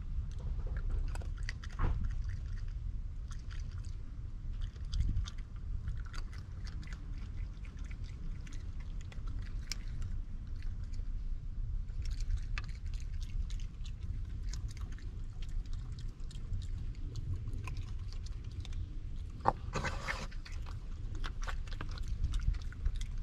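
A raccoon chewing and crunching peanuts close up, with many small crackles and clicks as it picks through the pile on the wooden table, busiest about twenty seconds in, over a low steady rumble.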